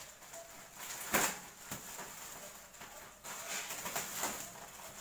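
Large plastic courier packet crinkling and rustling as it is handled and pulled open, in irregular bursts, loudest about a second in.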